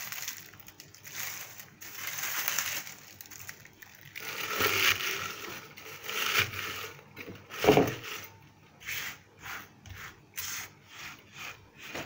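Dried linden flowers and leaves rustling and crackling as a hand presses them down into a stainless steel teapot, with one louder thump about two-thirds through. Near the end a run of short scratchy rubs, about two a second, as the hand gathers dried flowers on a wooden cutting board.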